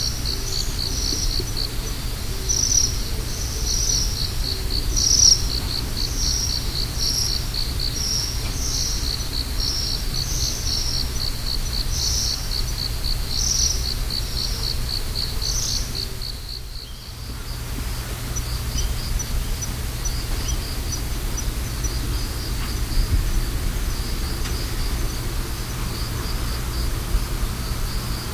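Autumn insects, crickets, singing in a fast, even run of high chirps, with a second insect's louder chirp repeating a little more than once a second over the first half. The chorus dips briefly about seventeen seconds in, then goes on more softly. A steady low rumble runs underneath.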